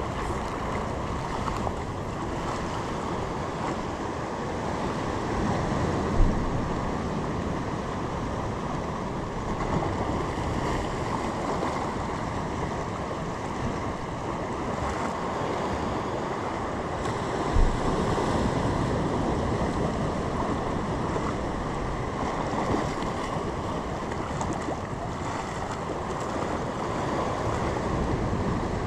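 Sea surf and wind noise buffeting the microphone, a steady rushing hiss, with two short low thumps about six and seventeen seconds in.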